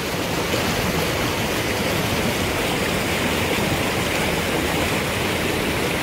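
A mountain stream pouring into a deep rock pool, a steady rushing of churning white water with no breaks.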